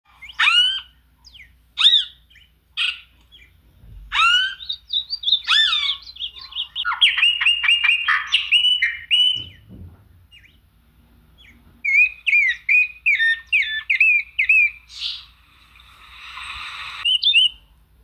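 Songbirds singing in separate phrases of sharp down-slurred whistles and chirps, including a fast run of repeated notes and later a series of repeated chirps. A harsher hissing call comes near the end.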